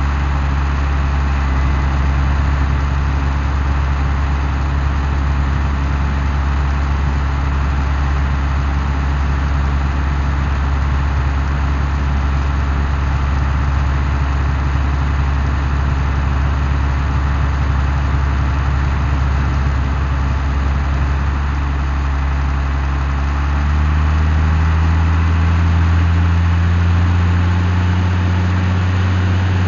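Case IH CVX 150 tractor's diesel engine running at a steady speed, its pitch stepping up a little and getting slightly louder about 24 seconds in.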